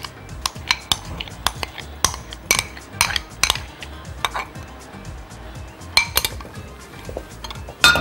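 A utensil repeatedly clinking against a glass jar as thick tahini sauce is scraped out of it: a run of sharp, irregular clinks, two or three a second.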